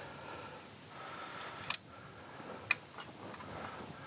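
Two short, sharp metal clicks about a second apart, the first the louder, over faint background hiss: small hand tools being handled on metal.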